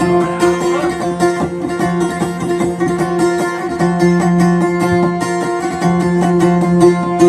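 Instrumental passage on a plucked string instrument, the kutiyapi boat lute of Maguindanaon dayunday music, with quick plucked notes over a steady low drone.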